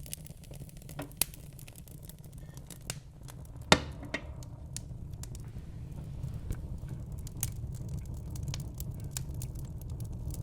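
Wood fire burning in a fireplace: a steady low rumble of flames with frequent sharp crackles and pops, and one loud pop a little before the midpoint.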